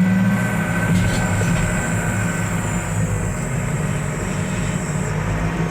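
Heavy diesel engine running steadily under light load, with a thin high whine above it.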